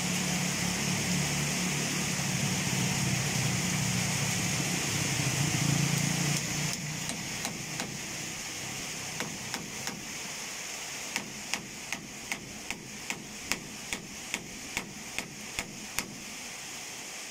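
A steady hiss with a low rumble that fades out about six seconds in, then a run of sharp, evenly spaced knocks, about two or three a second, lasting some seven seconds.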